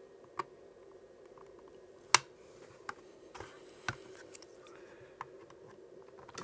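Plastic spudger prying at the snap-fit seam of a plastic router case: a handful of sharp, irregular plastic clicks with some scraping, the loudest about two seconds in, over a faint steady hum.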